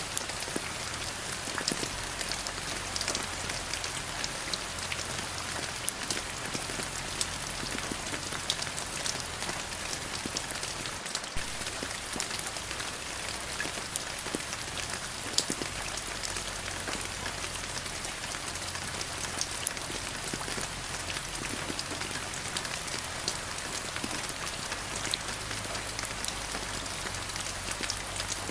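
Steady rain falling on surfaces, a continuous patter with many individual drops ticking sharply through it.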